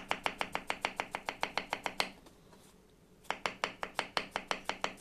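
Kitchen knife rapidly chopping peeled zucchini strips into small dice on a wooden cutting board, about eight sharp knife strikes a second. The chopping pauses for about a second in the middle, then starts again.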